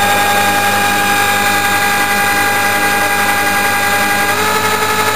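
Electric drill running at a steady speed, spinning a DC treadmill motor that is working as a generator into a solar MPPT charge controller, with a steady whine. The tone shifts about four seconds in as the drill is pushed harder against the motor's charging load.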